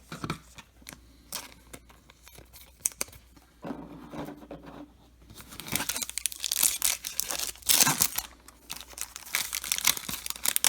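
Foil wrapper of a trading-card pack being torn open and crinkled, in loud crackling bursts through the second half, after a few seconds of light clicks from cards being handled.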